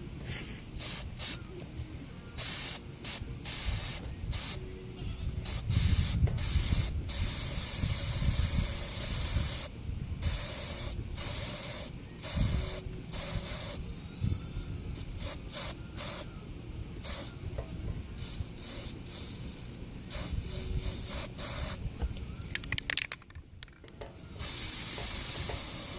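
Aerosol spray paint can hissing in repeated short bursts, with a few longer sprays, as pink paint is sprayed for hydro dipping.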